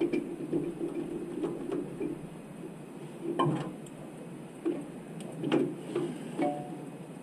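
Light clicks and clinks of metal parts and hand tools being handled during engine work, with a couple of sharper knocks about three and a half and five and a half seconds in.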